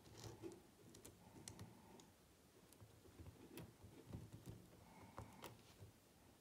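Faint, scattered light clicks and taps of small metal RC parts being handled and fitted by hand at an RC crawler's wheel hub, with a brass hub piece going onto the axle.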